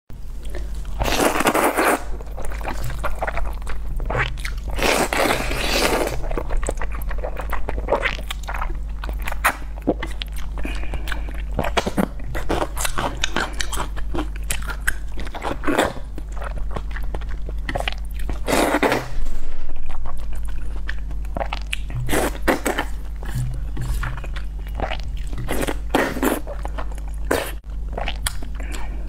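Close-up eating sounds: thick noodles in black bean sauce being slurped and chewed, with a few long slurps spread through and many short wet mouth clicks and smacks of chewing between them.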